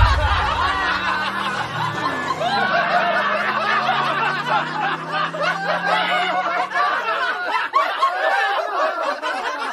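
Laugh track: a crowd snickering and chuckling all at once, many overlapping voices. A low steady drone runs beneath the laughter and fades out about three quarters of the way through.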